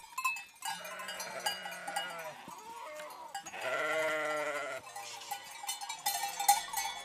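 A flock of mountain sheep bleating, several calls overlapping, with one long, loud bleat about halfway through. Bells tinkle throughout.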